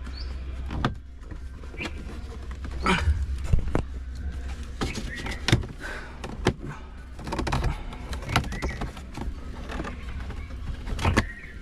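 Plastic dashboard trim panel being worked into place by hand, with a series of irregular clicks and knocks as it is pushed and snapped into its clips.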